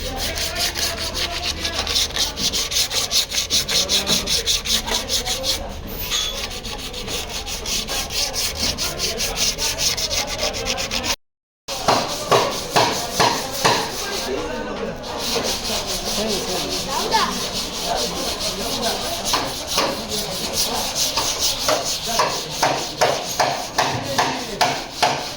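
Hand sanding on a car body panel: quick, rhythmic back-and-forth scraping strokes of abrasive paper, with a short break a little under halfway through.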